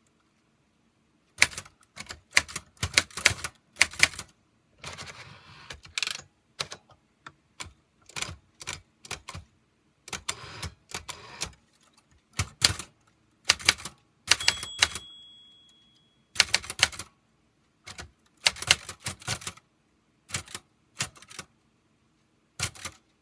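Typewriter keys struck in quick, irregular bursts of typing, with a few longer rasping stretches between them. A single short ringing tone sounds a little past halfway.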